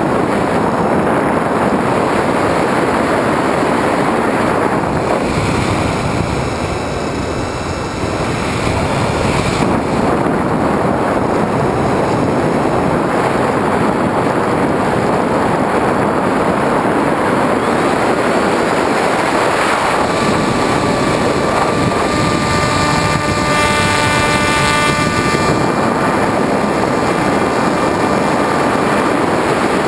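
Onboard sound of a Skywalker 1900 electric FPV plane in flight: a steady rush of air over the camera mixed with the buzz of the electric motor and propeller. The level dips briefly about a quarter of the way in. About two-thirds through, a higher motor whine comes in as the throttle is opened.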